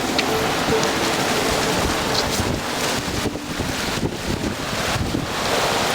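Steady wind buffeting the microphone over the rush of sea surf against the rocks.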